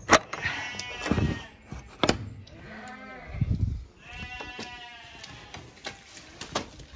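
Horses calling with high, wavering whinnies, several in turn, as they wait to be let out. A metal gate bolt clacks sharply at the start, with another knock about two seconds in.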